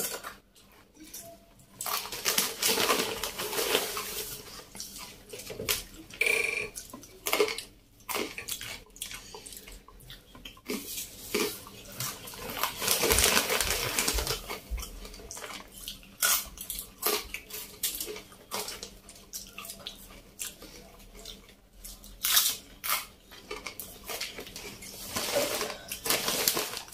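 Crisp fried potato sticks (potato murukku) being crunched in the mouth, mixed with a clear plastic snack bag crinkling as a hand rummages in it. The noise comes in irregular clusters of sharp crackles and clicks.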